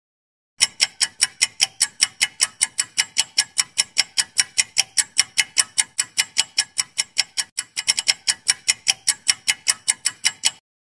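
Clock-ticking sound effect timing a quiz question, a quick even ticking of about five ticks a second. It starts about half a second in, breaks off briefly about seven and a half seconds in, and stops just before the end.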